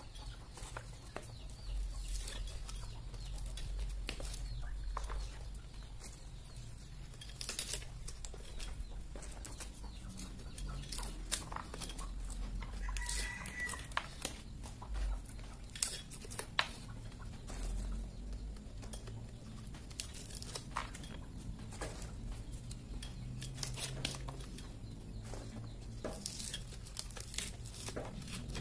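Hand-cranked areca nut husker with a metal head, turned steadily while its teeth tear and crack the husks off areca nuts, giving irregular clicks and snaps. Chickens cluck in the background.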